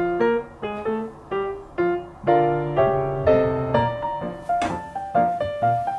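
Background music: a light piano melody, its notes struck at an even pace of about two to three a second.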